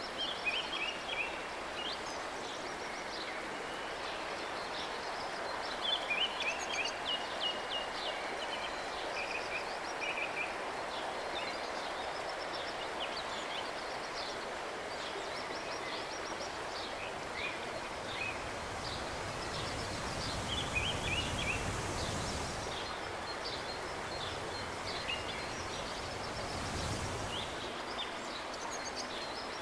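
Outdoor river ambience: a steady rushing hiss with many small birds chirping over it throughout. Two brief low swells come about two-thirds of the way through and again near the end.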